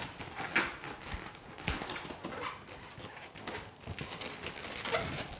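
Latex twisting balloons rubbing and squeaking under the hands as the leftover tails are worked off, with irregular light clicks and one sharper click about a second and a half in.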